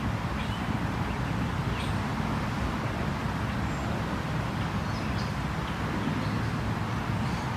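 Steady creek-side ambience: a constant rushing noise with a low rumble under it, and short high bird chirps scattered throughout.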